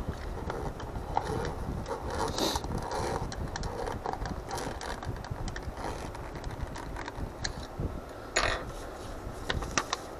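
Small screwdriver turning screws into a plastic model V8 engine kit, with irregular small clicks and creaks of the plastic parts being handled.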